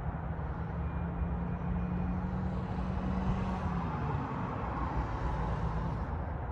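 Motor vehicle engine running, a steady low hum that drops slightly in pitch and fades about four seconds in, over constant outdoor rumble with a brief swell of road noise in the middle.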